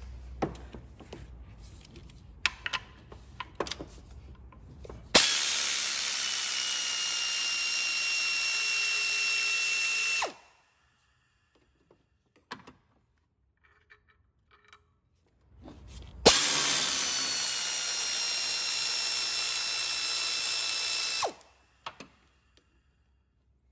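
Pneumatic air ratchet spinning out 15 mm engine bracket bolts: it runs twice, about five seconds each time, a loud hiss of air with a steady whine, the first run about five seconds in and the second about two-thirds of the way through. Light clicks of the socket and tool come before and between the runs.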